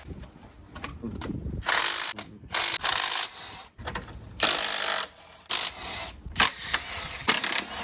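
Ratchet wrench being worked in about six short spells of rapid clicking, loosening bolts on the engine's front accessories.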